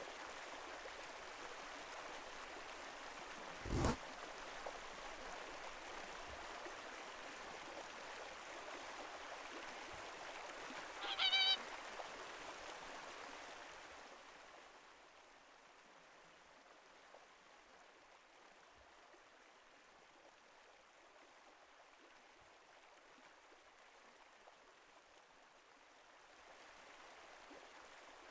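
A whooper swan gives a brief honking call about eleven seconds in, over a steady rush of running water that grows fainter partway through. A single sharp knock comes about four seconds in.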